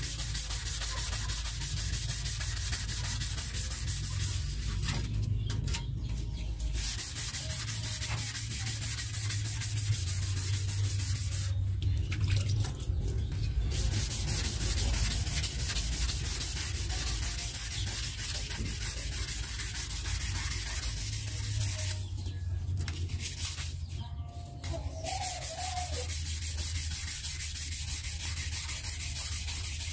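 Hand wet-sanding: sandpaper rubbed back and forth over a wet, soapy flat sheet in steady strokes, with a few short pauses.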